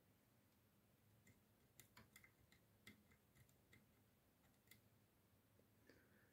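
Near silence with about a dozen faint small clicks and ticks, scattered between about one and five seconds in.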